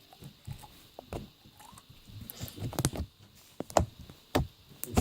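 Clear slime being squeezed and poked by hand, giving irregular small pops and clicks, a few louder ones in the second half.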